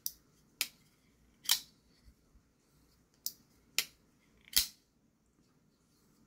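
Spyderco Shaman folding knife being flicked open and shut by hand, its blade and compression lock clicking sharply with each open and close, six clicks in about five seconds.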